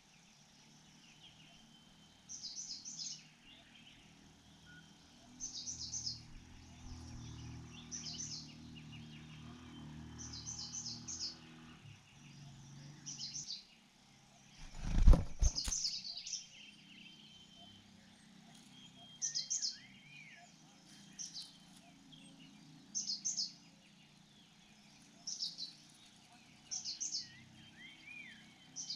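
A small bird chirping in short, high bursts of two to four notes, repeating every second or two. A loud thump with a brief rustle about halfway through.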